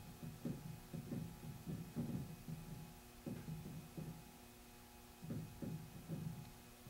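Soft thuds of keys being pressed on electronic keyboards played with headphones plugged in, so the notes themselves are not heard. The taps come two or three a second in an uneven rhythm, over a faint steady hum.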